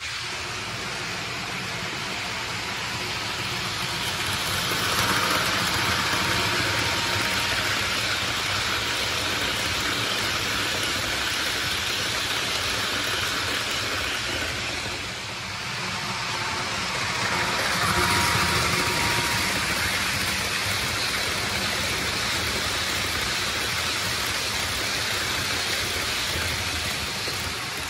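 HO scale model passenger train running on the layout's track, a steady noise of wheels and motor. It grows louder as the train passes close, about five seconds in and again about eighteen seconds in.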